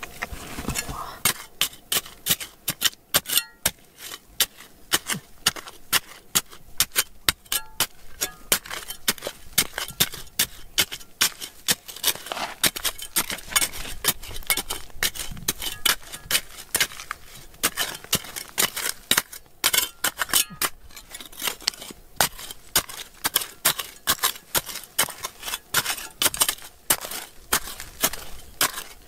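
Metal tool chipping at rock: a long run of sharp clinks, two or three a second at an uneven pace.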